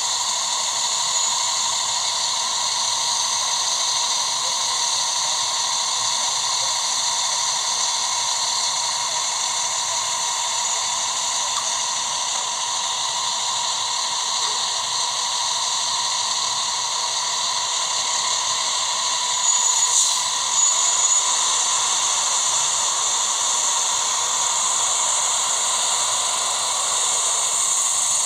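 Steady hissing noise with a few short, louder crackles about twenty seconds in.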